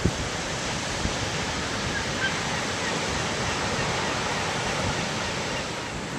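Steady rushing of ocean surf and wind.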